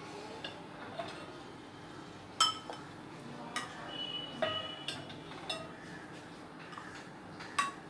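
A steel ladle clinking against glass tumblers as hot ragi porridge is ladled into them: a string of sharp clinks with a short ring, the loudest about two and a half seconds in and near the end.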